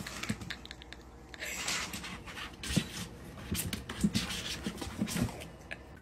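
A kitten's claws scratching and clicking on plastic cat-litter jugs as it climbs over them, with irregular taps and knocks of the hollow jugs.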